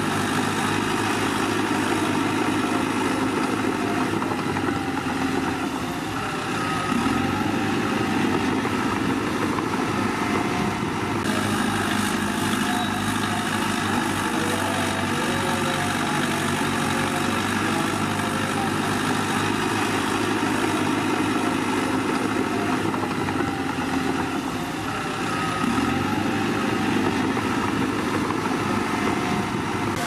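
A crawler bulldozer's diesel engine running steadily while it works. The engine note drops briefly and picks up again twice, about six seconds in and again near twenty-five seconds.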